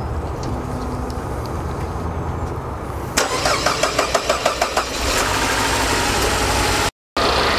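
Saab 9-5's turbocharged four-cylinder engine being started. A steady low hum gives way about three seconds in to quick rhythmic chugging as it cranks, then it catches and runs steadily. This is the first start after a new Garrett GT1752 turbo was fitted and pre-oiled by cranking.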